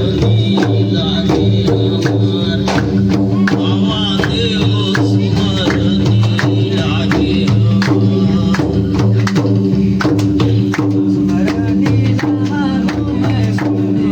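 Devotional folk music: drums and jingling percussion beating a fast, steady rhythm over steady held notes.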